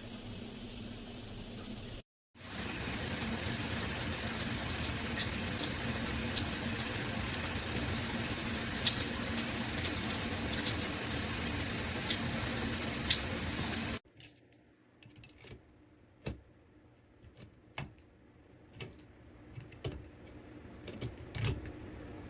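HOPOPRO handheld shower head spraying water in a steady hiss, broken once by a brief cut about two seconds in. The water stops abruptly about two-thirds of the way through, leaving scattered small clicks and taps.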